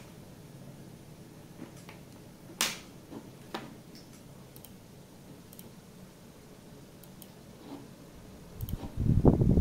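Computer mouse clicking: one sharp click, with a few softer clicks before and after, over a faint steady hum. Near the end a loud low rumbling noise starts suddenly.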